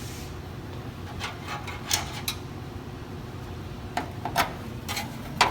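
Scattered small metallic clicks and taps of a screwdriver driving a motherboard screw into a brass standoff in a computer case, a few around two seconds in and a closer run near the end.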